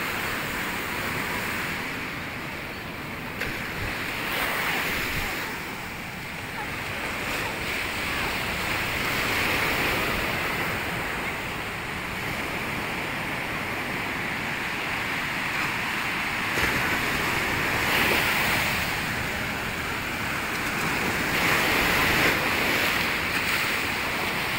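Surf breaking on a sandy beach: a continuous rush of waves that swells and eases every few seconds.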